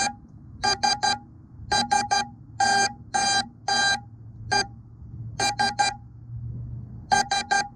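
An FPV quadcopter's onboard buzzer beeping on the ground after a crash. It gives short, high, steady-pitched beeps, some single and some in quick runs of three, a lost-model alarm set off after the ELRS radio link failsafed.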